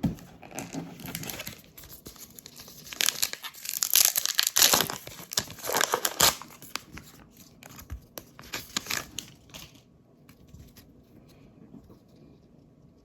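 Topps Heritage card pack wrapper being torn open and crinkled by hand: a cluster of loud rustles and tears about three to seven seconds in, a few smaller crinkles after, then only faint handling.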